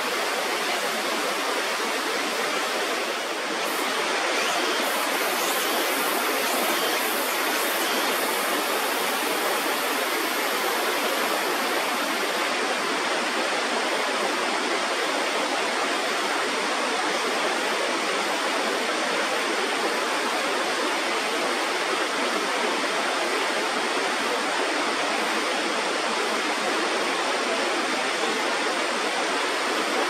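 Steady rush of water pouring over a river weir, at its loudest with the river swollen after a typhoon.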